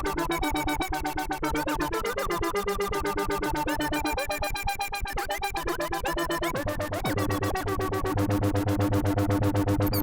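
Behringer Neutron analog synthesizer playing a fast-pulsing, modulated drone of stacked tones that shift in pitch. Some notes glide a little past the middle, and a deep bass tone comes in about two-thirds of the way through.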